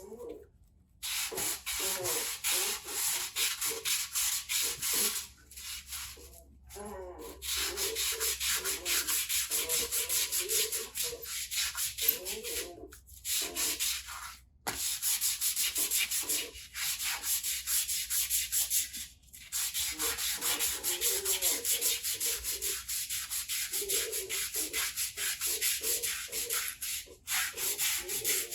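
Abrasive sanding of the aluminium exhaust of a 1998 Honda CBR 900 RR: fast back-and-forth rubbing strokes with a rough, hissy scrape, in runs broken by several short pauses.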